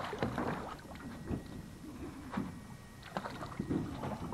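Water splashing and sloshing in short irregular bursts beside a small fishing skiff as a hooked redfish is brought alongside to be landed.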